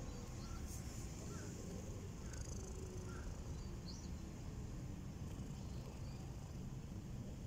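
A domestic cat purring as it is stroked, a steady low rumble, with a few faint short chirps above it.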